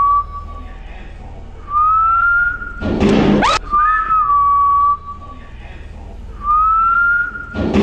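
Eerie whistled tune of long held notes, two short phrases repeating in a loop, as horror background music. A rising whoosh sweep cuts across it about three seconds in and again at the end.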